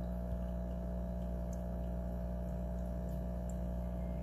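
Small reef aquarium's pump and filter running, a steady low hum with water circulating.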